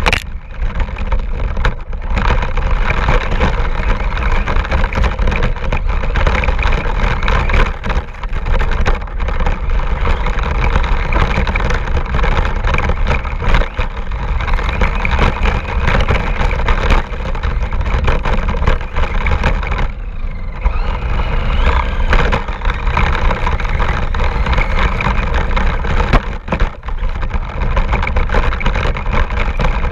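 Radio-controlled car driving, heard from a camera mounted on it: a loud, steady rush of motor, drivetrain and ground noise, broken by sharp knocks from bumps every few seconds.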